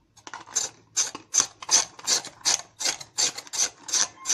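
A block of ice being shaved by hand for halo-halo, a run of rasping scrape strokes about three a second.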